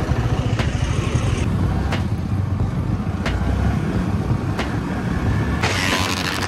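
Yamaha R15 V3's single-cylinder engine running as the motorcycle rides off, with a steady low rumble of engine and wind on the microphone. Near the end the wind hiss gets much louder.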